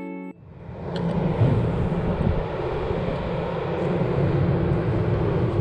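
Intro music cuts off just after the start, then steady outdoor city ambience fades in: an even, unbroken rumble of distant traffic and engines picked up by a GoPro Hero 7 Black's built-in microphone.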